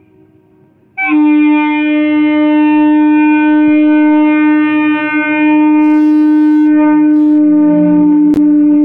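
Electric multiple-unit (EMU) local train's horn blowing one long, steady note, starting abruptly about a second in. Near the end the train's wheel rumble joins as it passes, with one sharp clack.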